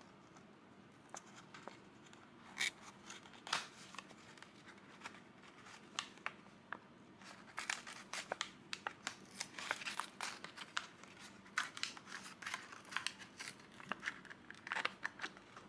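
Plastic blister being worked loose and torn off a die-cast car's cardboard backing card: irregular faint crackles and clicks of stiff plastic and card. They are sparse at first and come thick and fast in the middle.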